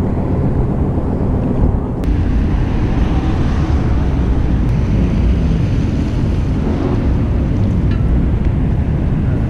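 Wind buffeting the camera's microphone: a loud, steady, low rumbling noise, with a bit more hiss from about two seconds in.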